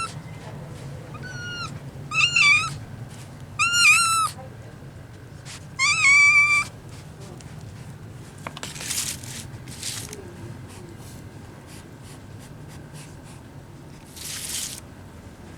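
Kitten meowing: four short, high-pitched meows in the first seven seconds, the first one faint. Later come a few brief hissy noises.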